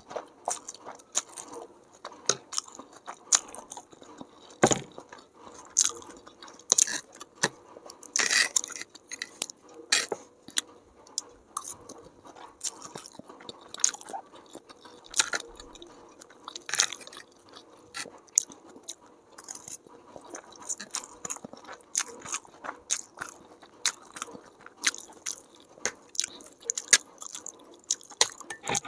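Close-miked chewing and slurping of chow mein noodles: a steady run of irregular wet mouth clicks and smacks.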